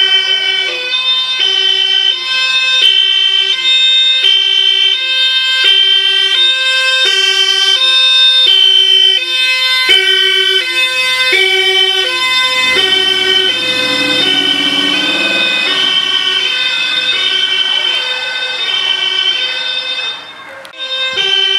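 Two-tone police siren on a 1990 Porsche 911 (964) Targa patrol car, switching steadily between a high and a low note about twice a second. A low rumble from the car swells about two-thirds of the way through, and the siren dips briefly near the end.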